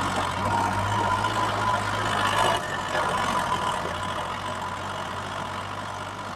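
Engine-like motor running steadily at idle, an even low hum that fades a little toward the end.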